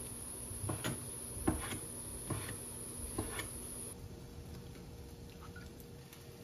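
Kitchen knife chopping fish cake on a wooden cutting board: a handful of uneven knocks, roughly in pairs. About four seconds in the chopping stops and only a few faint ticks remain.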